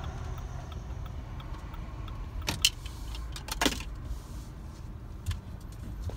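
Car cabin noise: a low, steady engine and road rumble as the car rolls slowly through a parking lot, with two short, sharp rattles about two and a half and three and a half seconds in and a smaller click near the end.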